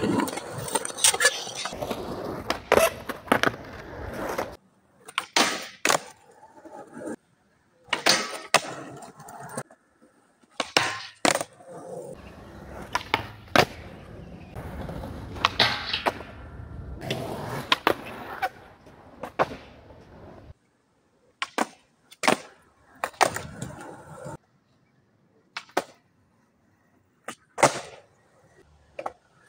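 Skateboard wheels rolling on smooth concrete, broken again and again by sharp wooden clacks of the tail popping and the board landing as tricks are done. The rolling cuts off abruptly several times, leaving near silence between tricks.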